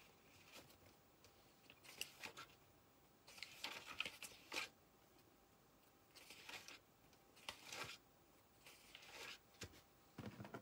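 Faint rustling and crinkling from things being handled, in short scattered bursts over several seconds.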